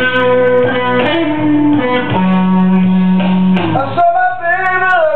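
Electric guitar playing a blues lead over a backing track, with held notes and, near the end, notes bent up and down in pitch.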